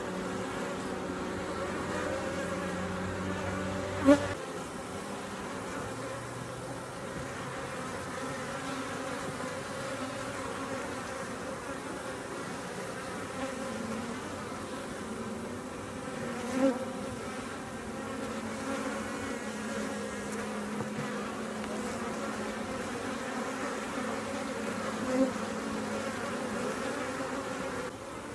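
Honey bees humming steadily over an open hive as its frames are inspected. A sharp click comes about four seconds in, and there are two brief louder moments later on.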